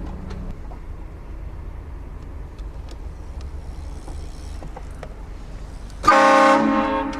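Vehicle-mounted train horn giving one loud blast about a second long near the end, a chord of several tones that is loudest at the start and then tails off. Before it there is only the steady low rumble of the vehicle.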